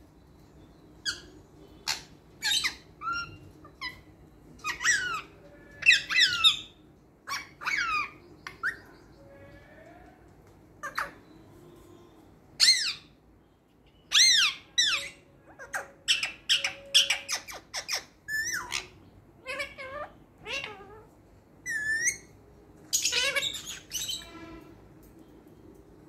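Indian ringneck parakeet calling: a long string of short, shrill squawks and chirps, many sliding down in pitch, coming every second or so, with a dense run of calls near the end.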